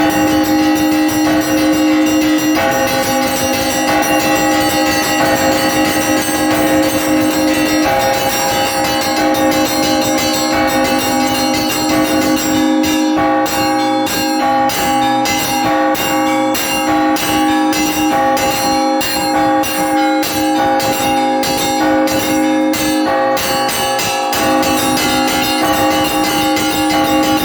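Russian Orthodox church bells rung in a festal peal. Several bells' tones ring on steadily while smaller bells are struck over and over in a quick, even rhythm, which grows denser and clearer in the middle of the stretch.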